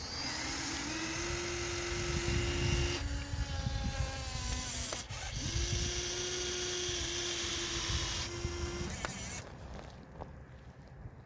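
Huina RC excavator's small electric motors and gearboxes running with a geared whir in a few runs, the tone shifting as it changes from one movement to another. The whir stops about nine and a half seconds in.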